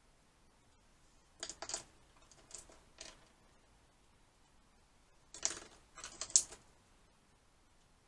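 Wooden colored pencils clicking and clattering against one another as they are sorted through and picked from a pile on a desk. The clicks come in a few short clusters, the loudest about six seconds in.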